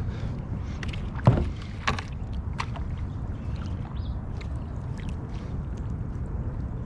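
Steady low rumble of wind and water on the microphone, with a few sharp knocks and splashes while a hooked bass is fought in. The loudest knock comes just over a second in.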